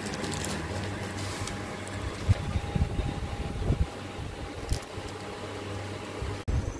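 Steady machine hum with a faint constant tone, and light rustles of the plastic wrapping on a book being handled. The hum cuts off abruptly near the end.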